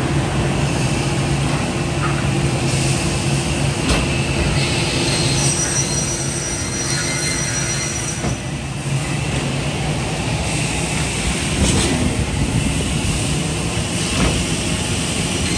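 Holzma HPP 350 panel beam saw running: a steady low machine drone, with a thin high whine that comes in after about five seconds, and a few sharp knocks spread through.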